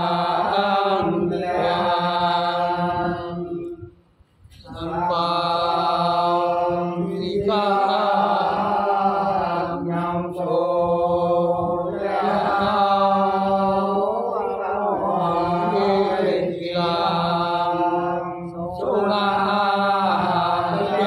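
A group of men singing a Sán Dìu soọng cô folk song together in long, drawn-out chanted phrases. Brief breaths come between phrases, with one clear pause about four seconds in.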